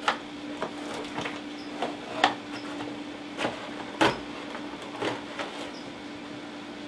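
A clear plastic clamshell container being opened and handled, with scattered crackles and clicks of stiff plastic, the sharpest snap about four seconds in. A steady low hum runs underneath.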